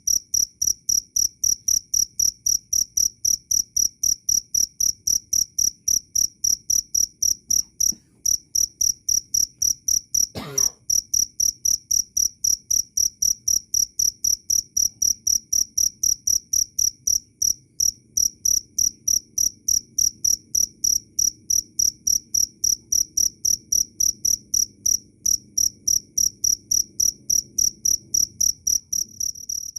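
A field cricket chirping loudly and steadily: a fast, even train of short high-pitched chirps, about three a second. A single brief knock sounds about ten seconds in.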